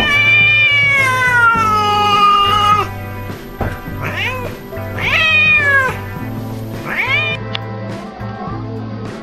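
Domestic cat yowling angrily: one long drawn-out yowl that falls slowly in pitch, then three shorter yowls that each rise and fall. Background music plays underneath.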